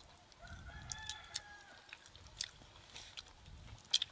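A rooster crows once, faintly, a held call of about a second and a half. Soft clicks and squishes come from a hand mixing rice on a banana leaf.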